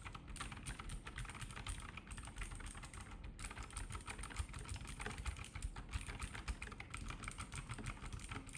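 Fast continuous typing on a Keychron K2 mechanical keyboard fitted with HyperX double-shot PBT pudding keycaps: a rapid, uneven clatter of key strokes during a typing test.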